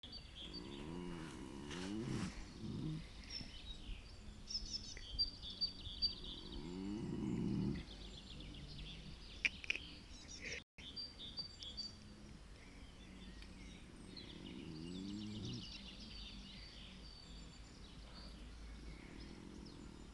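A sleeping horse snoring: three long snores, roughly seven seconds apart, the second the loudest. Birds chirp in the background.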